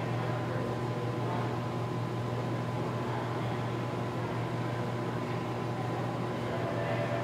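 Auto repair shop ambience: a steady low hum of running machinery with faint, constant higher tones over it.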